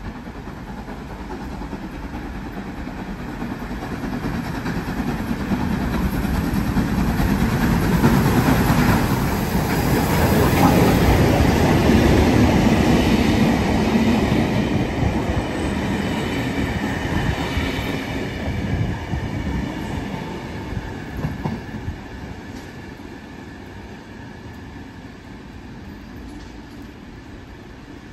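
NSWGR C35 class steam locomotive 3526 and its heritage carriages passing through a station: the noise builds as the train approaches, is loudest from about 8 to 14 seconds in, then fades as the carriages roll away with wheels clacking over the rail joints.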